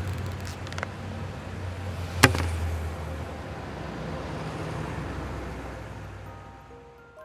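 Low, steady rumble of street traffic, with a single sharp click about two seconds in. The rumble fades out near the end as a few chime notes begin.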